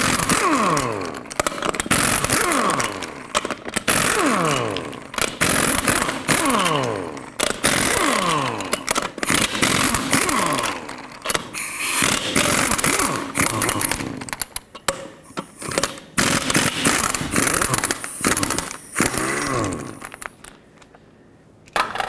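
Pneumatic impact wrench spinning off a wheel's 22 mm lug nuts one after another: repeated bursts of hammering, each ending in a falling whine as the air motor winds down after the trigger is let go. The bursts stop about two seconds before the end.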